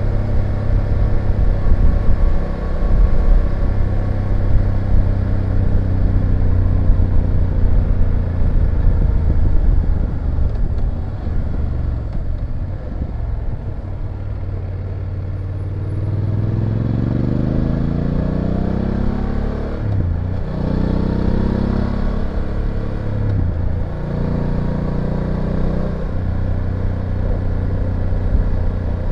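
BMW F850GS parallel-twin engine and exhaust running steadily, easing off for a few seconds, then accelerating in rising sweeps through three upshifts before settling into a steady cruise.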